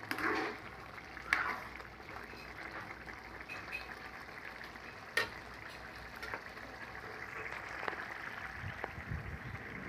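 Coconut-milk stew bubbling and sizzling steadily in a pan on a gas burner, the coconut milk cooked down almost to the point where its oil separates. A few sharp clicks sound along the way, and some dull low thumps come near the end.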